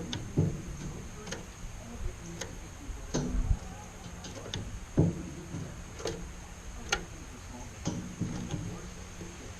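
Irregular sharp clicks and taps, roughly one a second, some louder than others, over a faint steady hum.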